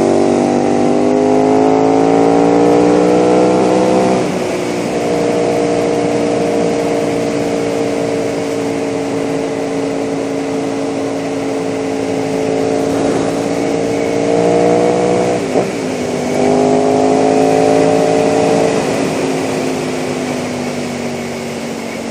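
KTM 990 SMR's V-twin engine, breathing through a Leo Vince exhaust, pulling hard under acceleration with its pitch rising. It shifts up about four seconds in, then holds a steady note. About fifteen seconds in it dips briefly, then pulls again and shifts up once more near nineteen seconds in, with wind noise rushing over the microphone.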